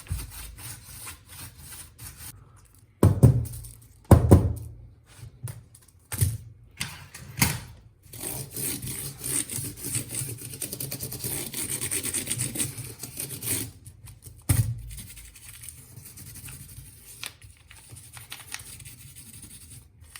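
Handling noise from a laptop being turned over and looked over by hand: a few dull thunks, and near the middle a stretch of several seconds of rubbing and scratching.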